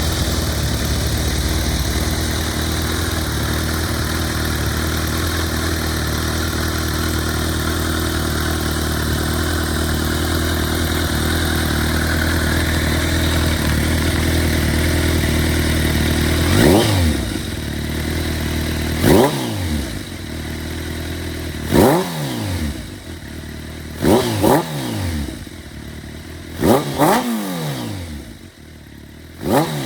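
Kawasaki ZRX1200 DAEG's inline-four engine idling steadily, then, from about halfway, blipped repeatedly with quick throttle stabs. Each rev rises sharply and drops straight back to idle, sometimes two in quick succession.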